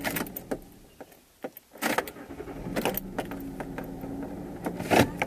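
Clicks and knocks of a hand handling a camera or its mount by the rear-view mirror, over the steady hum of a vehicle engine running. The hum drops out for about half a second around a second in, and the loudest knock comes near the end.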